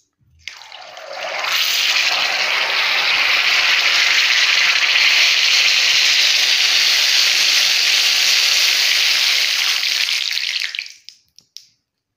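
Hot cooking oil in an aluminium kadhai sizzling hard as Colgate Max Fresh toothpaste is squeezed into it. The sizzle builds up over about a second, holds loud and steady, then fades out about eleven seconds in.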